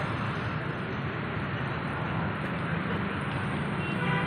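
Steady street noise: a continuous, even hum of road traffic with no distinct events.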